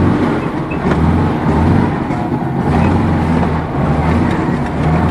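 ZAZ-968's rear-mounted air-cooled V4 engine running on the move, heard from inside the cabin as a steady low drone that swells and eases slightly.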